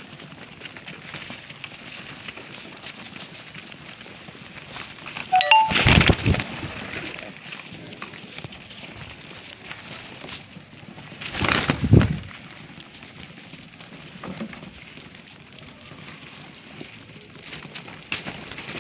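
Domestic pigeons pecking mixed dry grain from a hand: a steady crackling patter of many beaks striking the kernels. Two louder noisy bursts come about six and twelve seconds in.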